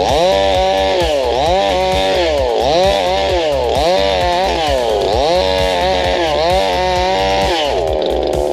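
Unbranded 'Chainsaw 5200' two-stroke gas chainsaw with a 22-inch bar running hard while cutting a tree. Its engine pitch drops and climbs back about five times, then holds steadier near the end.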